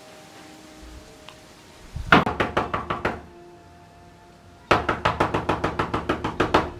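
A fist pounding rapidly on a wooden panel door: two runs of fast knocks, about eight a second, the first lasting about a second from two seconds in, the second longer and starting just before the five-second mark.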